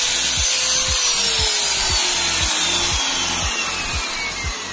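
Angle grinder spinning down after the cut, its thin whine slowly falling in pitch, over background music with a steady beat.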